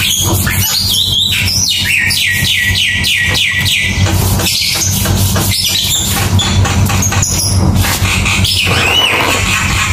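Bird calling: a rising-and-falling chirp, then from about a second and a half in a quick run of about eight descending whistled notes, and another chirp near the end, all over a steady low hum.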